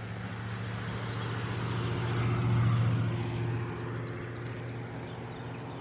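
A truck driving past: a steady engine hum with tyre noise that grows to its loudest about two and a half seconds in, then fades away.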